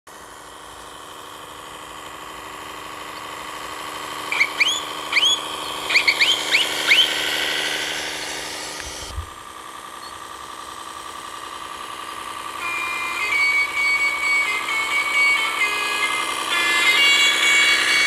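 Simulated diesel tractor engine running steadily from the sound module's speaker on an RC John Deere 9RX model, with a string of short air-horn toots, each sliding up in pitch, about four to seven seconds in. The sound cuts suddenly around nine seconds, and from about twelve seconds a multi-tone musical horn plays a stepped melody over the engine.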